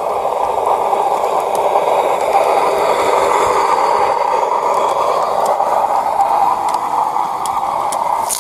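Battery-powered G-scale garden-railway locomotive and loaded log wagons rolling along the track close by: a steady running noise of wheels on rails, with a few faint clicks.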